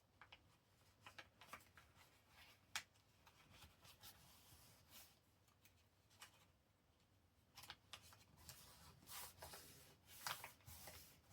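Faint rustling and soft taps of paper being handled and folded, with a few short crisp clicks scattered through and more handling noise near the end.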